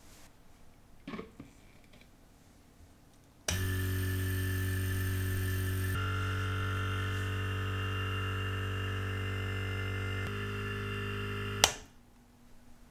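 Pump of an Elma watch leak tester running with a steady electric hum for about eight seconds, its tone changing twice, while the chamber is pumped for a waterproof test of the watch case. It stops with a sharp click of the tester's switch.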